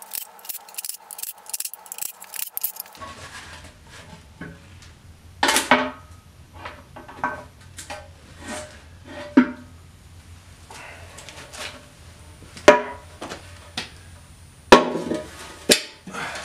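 A cordless drill with a socket extension rattles out the oil pan bolts of a BMW M54 engine for about three seconds. Then come scattered metal clanks and knocks as the oil pan is worked loose and taken off.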